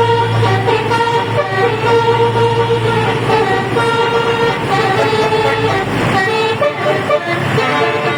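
Basuri musical air horn on a bus playing a tune, a quick run of short pitched notes that step up and down. Under it a low steady hum fades out about six seconds in.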